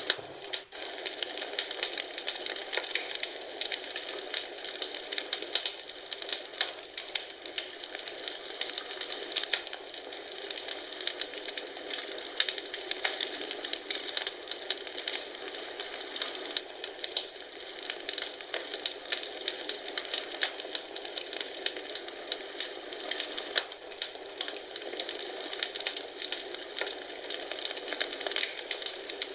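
Wood fire in a fireplace crackling and popping, a dense irregular stream of small snaps that keeps on steadily.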